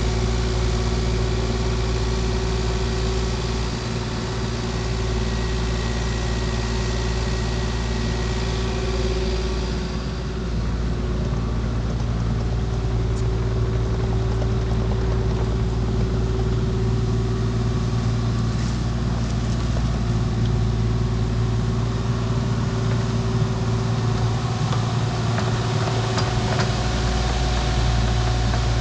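Diesel engine of a compact construction machine running at a steady speed.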